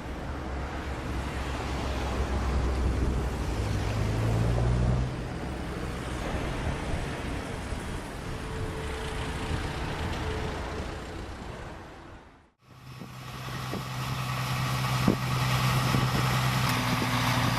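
Heavy diesel machinery running, an engine drone under a noisy rumble. About twelve seconds in the sound dips away, and a second machine's engine comes in running steadily, with a few sharp knocks.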